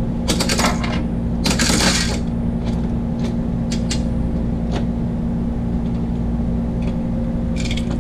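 Coin-operated candy vending machine being worked by hand: coins going in and the metal coin mechanism turned, with two short metallic rattles in the first two seconds and a few light clicks after, over a steady low hum.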